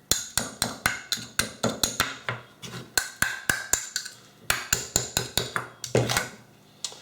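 A quick run of sharp taps or knocks on something hard, about three to four a second with a couple of brief pauses, stopping about six seconds in.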